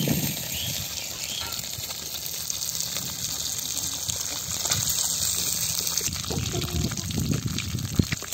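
Masala-coated fish slices shallow-frying in oil in an earthenware pan, a steady high sizzle.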